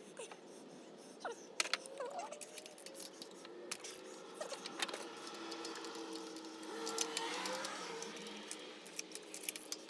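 Metal hand tools and engine parts clinking and rattling in sharp, scattered clicks. Faint whining animal calls come in about a second in.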